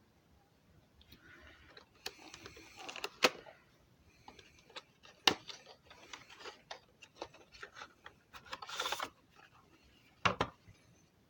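A headset's retail packaging being handled and opened: rubbing and scraping with scattered sharp clicks and taps, the loudest clicks about 3, 5 and 10 seconds in.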